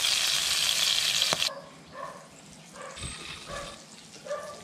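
Panko-crumbed squid rings frying in hot oil in a pan, a loud steady sizzle that cuts off abruptly about a second and a half in. After that, a few faint short sounds.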